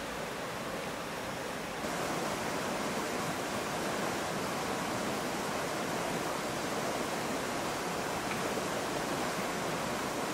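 Steady, even rushing of water, like rain or a stream, with no distinct drops or clicks; it gets a little louder about two seconds in.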